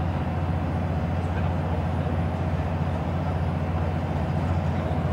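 Scania Wright Solar single-decker bus heard from inside at a steady cruise: a steady low engine and drivetrain drone mixed with road and tyre noise.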